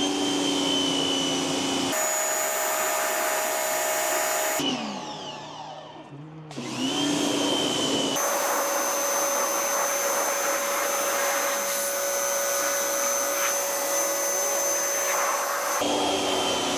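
Pressure washer running and spraying: the motor whines up to speed at the start, winds down around five seconds in, then starts up again a second or so later and keeps running. The tone of the noise changes abruptly a few times.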